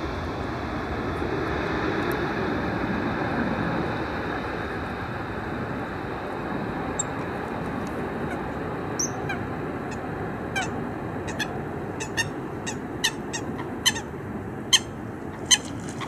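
Jet engine roar of a Boeing 737-800 rolling out after landing, slowly fading as it slows and moves away. From about nine seconds in, a bird calls in short squawks, roughly one a second, growing louder toward the end.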